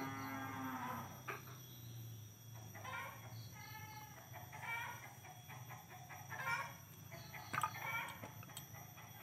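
Chickens: a rooster's crow ending about a second in, then short clucking calls every second or so.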